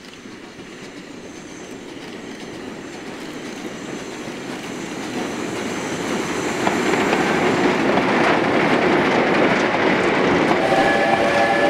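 Narrow-gauge steam train of goods wagons running past, its wheels rumbling and clattering over the rails, growing steadily louder as it approaches and then holding as the wagons roll by. About a second before the end a steady high-pitched tone of several pitches sets in.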